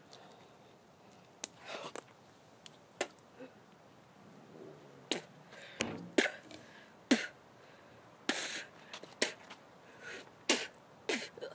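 A boy coughing, sputtering and spitting in a string of short bursts, louder and closer together in the second half, as the soda fizzing up from Mentos in his mouth foams out.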